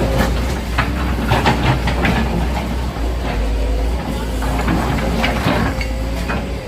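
Excavator engine running with a steady low drone, under irregular knocks, cracks and clatter of demolition rubble being broken and shifted.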